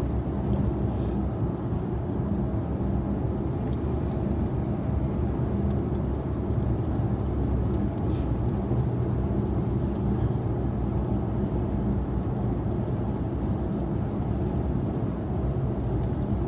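Steady road and engine noise inside a moving car's cabin, a constant low rumble with a faint hum.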